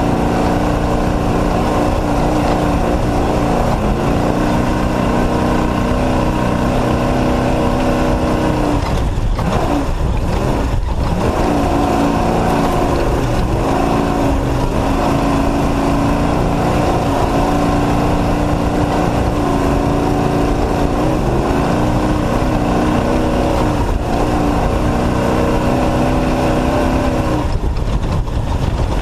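Off-road race truck's engine running hard under load, its pitch rising and falling as throttle and gears change, with brief dips about nine to eleven seconds in and again near the end.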